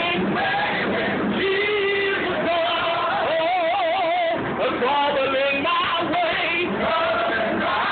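Gospel singers, men and women together, singing, with one held note wavering in a wide vibrato about halfway through.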